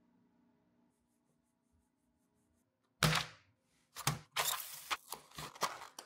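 A small cardboard box of wooden toothpicks set down on a wooden desk with a sharp thunk about three seconds in, then a run of clicks and cardboard rustling as the box is handled and its lid flipped open.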